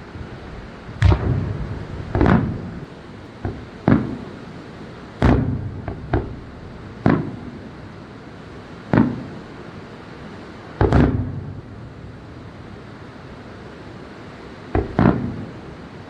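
Aerial fireworks bursting overhead: about a dozen loud booms at irregular intervals, some in quick pairs, each followed by a rumbling echo.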